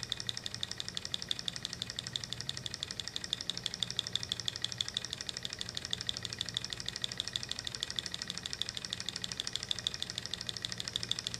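Large-scale Tarot hot-air Stirling engine, heated by an alcohol lamp, running steadily on its own: a quiet, rapid, even ticking as it turns over.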